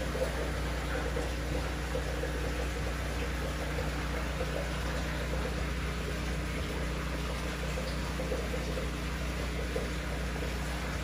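Steady hum of running aquarium equipment, a pump or filter, with the even hiss and faint crackle of moving water.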